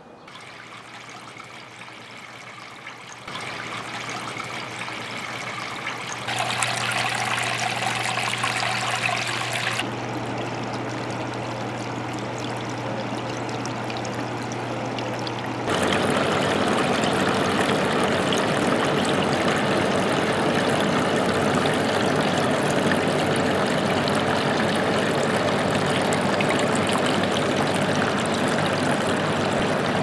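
Water trickling down through a homemade evaporative cooler's pad and dripping into the reservoir below, over a steady electric motor hum. The sound jumps louder in steps, about 3, 6 and 16 seconds in, then stays loud and steady.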